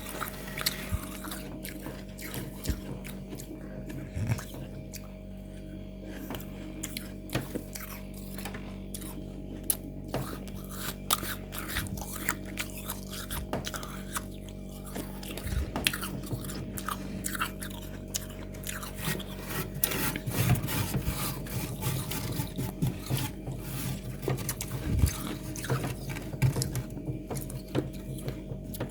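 Close-up biting and chewing of freezer frost packed into egg shapes: crisp crunches and crackles, denser and louder in the second half, over a steady low hum.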